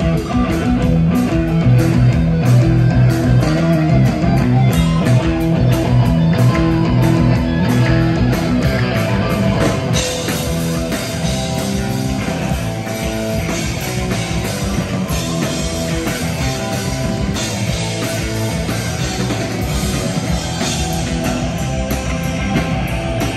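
Thrash metal band playing an instrumental passage live: distorted electric guitars, bass guitar and drum kit. About ten seconds in, the playing turns brighter and a little quieter.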